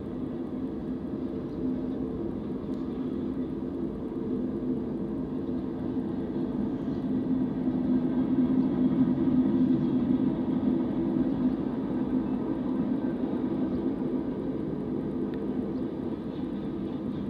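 BNSF mixed freight train's cars rolling past: a steady rumble of steel wheels on the rails, growing a little louder in the middle.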